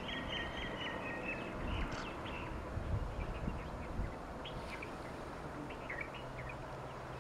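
Small birds chirping: a quick run of chirps in the first second and a half, then scattered short calls. Underneath is a faint steady low rumble from the distant train.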